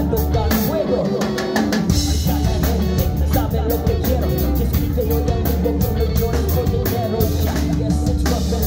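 Live band playing a song: electric guitar, electric bass, keyboards and drum kit in a steady groove.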